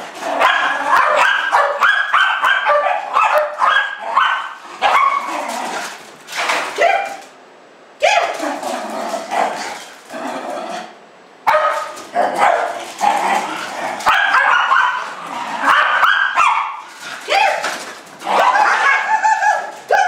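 Jack Russell terriers barking and yipping in quick runs of high-pitched calls, with two short lulls about halfway through.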